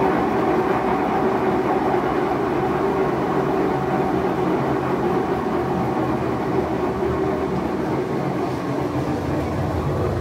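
Kenmore Elite Oasis top-load washer spinning with a loud, steady, jet-engine-like roar and a droning hum, which the owner takes for a rough, failing tub bearing.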